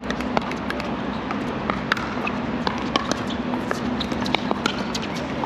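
Pickleball paddles hitting a plastic ball: a string of sharp pops at irregular intervals, some loud and some faint, over a steady low hum.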